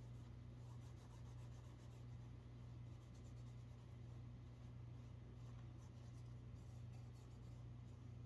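Near silence: faint soft rubbing and dabbing of a cotton dauber working leather conditioner over a leather knife sheath, under a steady low hum.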